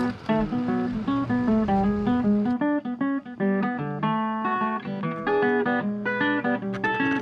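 Background music: acoustic guitar picking a quick melody of short single notes.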